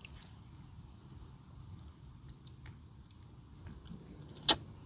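A person chewing and biting grilled snakehead fish eaten by hand, with soft scattered mouth clicks and one sharp crunch near the end.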